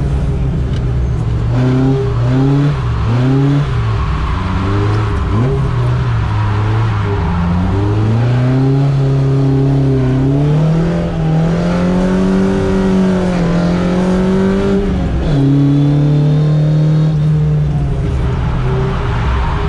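Toyota AE86 Corolla's carbureted 4A-GE four-cylinder engine, heard from inside the cabin, revving up and down in short steps for the first few seconds. It then climbs for several seconds and holds high revs before dropping sharply about fifteen seconds in.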